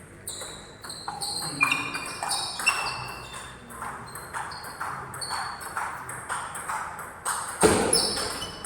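Table tennis rally: the ball clicking off rackets and table in a quick, even rhythm of about three hits a second, each with a short high ping, and one louder, harsher hit near the end.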